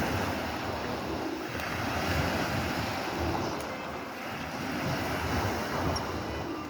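Sea waves washing on the shore, swelling and easing, with wind buffeting the microphone.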